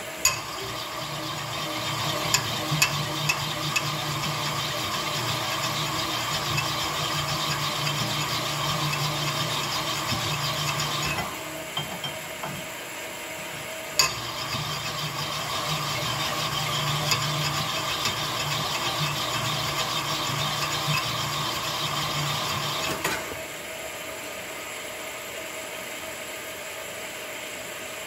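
Sunnen rod hone's spinning mandrel honing the big-end bore of a 283 Chevy connecting rod as the rod is worked back and forth: a steady metallic grinding hum in two runs, stopping about 11 seconds in, starting again with a click near 14 seconds and cutting off near 23 seconds. The rod is being honed out to its finished size and is nearly there.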